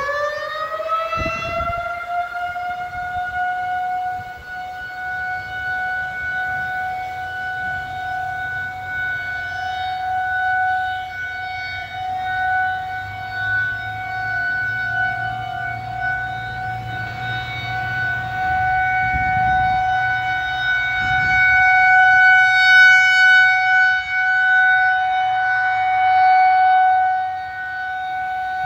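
Federal Signal 2001-SRNB outdoor warning siren finishing its wind-up, its pitch rising over the first two seconds, then holding one steady tone as the alert signal. Its loudness rises and falls a little, strongest toward the end.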